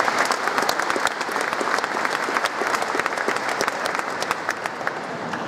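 A large audience applauding, many hands clapping at once in a dense, steady patter.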